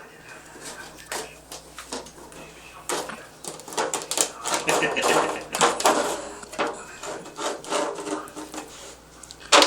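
A dog nosing and pawing at a small object on a hard floor: irregular clicks, scrapes and knocks, busiest in the middle.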